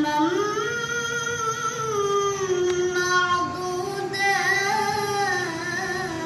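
A high, young voice chanting Quran recitation (tilawah) in long, ornamented held phrases, the pitch slowly rising and falling.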